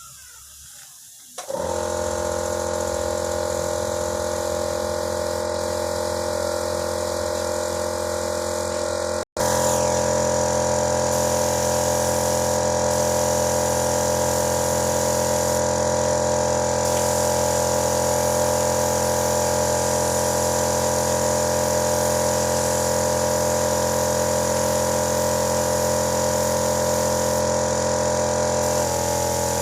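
Small electric air compressor running for spray painting: a steady motor hum with an air hiss on top. It breaks off for an instant about nine seconds in and comes back slightly louder, with more hiss.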